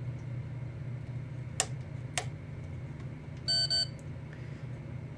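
Digital multimeter's continuity beeper sounding once, briefly, near the end, after two sharp clicks from the radio's power switch being worked: the meter finding continuity through the power transformer's primary, though the contact through the switch or plug is dirty and comes and goes. A steady low hum runs underneath.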